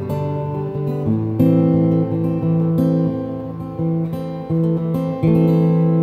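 Acoustic guitar strummed in slow chords, amplified through a Yamaha Stagepas 600i PA with its plate reverb on. A new chord is struck roughly every second, and the last one rings on near the end.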